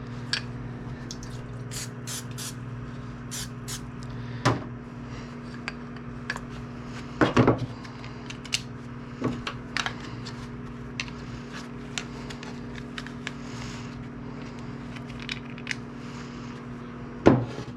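Microwave oven running with a steady hum while it heats used soft-plastic baits to melt them. Scattered clicks and knocks of cups and tools being handled sound over it, the loudest about seven and a half seconds in.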